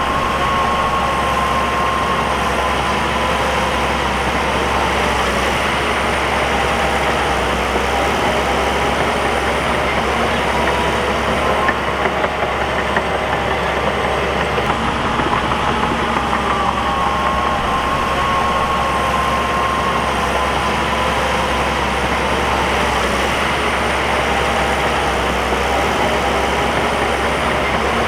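Crawler bulldozer's diesel engine running steadily, with a whining tone whose pitch wavers gently up and down.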